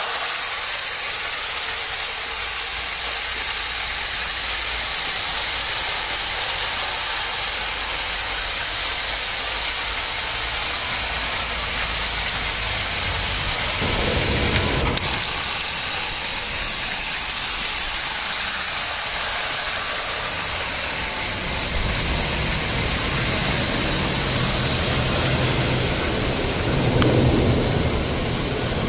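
Charles Rossignol clockwork tinplate 0 gauge train running on metal track: a steady whirring hiss from the spring motor and the wheels. About halfway through, a brief knock comes as a hand takes hold of the locomotive.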